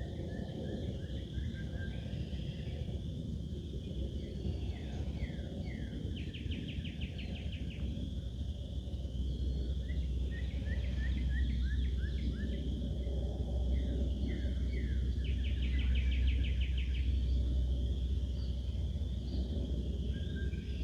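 A songbird singing two phrases, each a run of quick down-slurred notes ending in a fast trill, over a steady low rumble.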